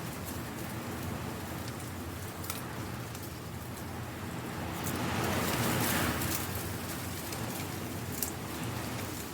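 Dry leaves rustling and skittering in a strong wind, with scattered light crackling ticks. A gust swells about five seconds in and eases off a second or so later.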